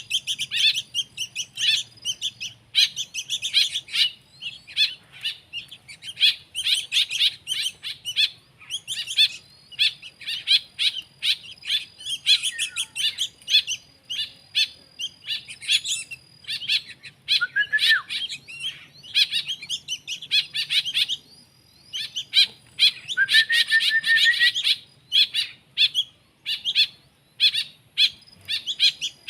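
Small songbirds chirping: a dense run of rapid, high, short chirps, with a couple of brief lulls and two longer slurred calls partway through.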